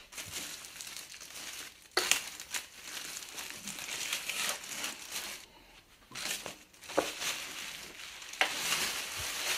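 Clear plastic wrapping film crinkling and rustling in irregular bursts as it is handled and pulled off, with a few sharp crackles.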